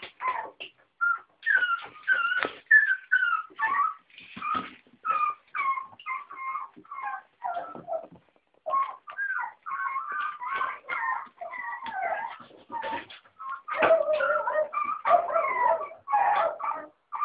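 West Highland White Terrier puppies, about eight weeks old, whining and whimpering: a near-continuous string of short cries that slide up and down in pitch, at times several overlapping at once.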